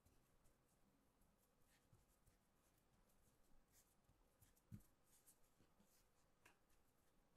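Faint soft taps and rubbing of fingertips pressing and shaping a small piece of pastry dough on a floured plastic cutting board, with one slightly louder soft thump a little before five seconds in.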